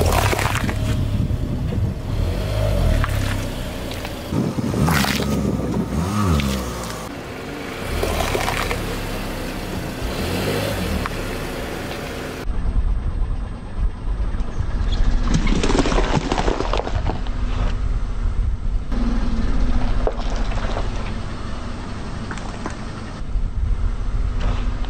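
Car tyre rolling over and crushing bell peppers on asphalt: several sudden crunches and pops as the peppers split, over the car's low rumble.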